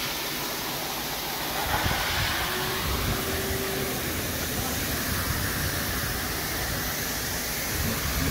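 Steady rushing hiss of car-wash noise, with an uneven low rumble joining about two seconds in.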